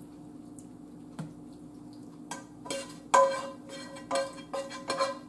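Metal tongs knocking against a skillet as spaghetti is scraped out of it: a string of irregular ringing clinks starting about two seconds in, the loudest near the middle, over a faint steady hum.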